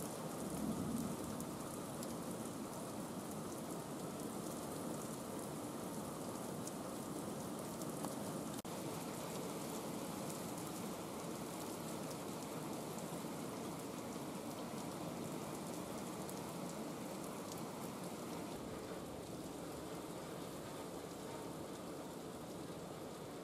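Heavy rain falling steadily, drops striking outdoor surfaces.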